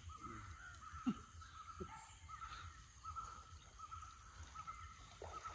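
Faint outdoor ambience: an animal's short call repeats about twice a second over a steady high hiss, with a few soft knocks.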